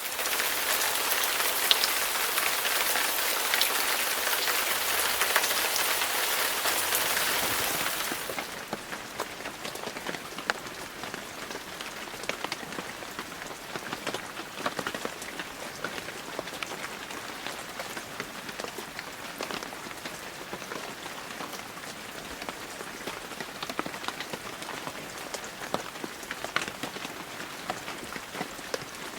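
Rain falling, dense and loud for about the first eight seconds, then easing suddenly to a lighter fall with scattered single drops ticking.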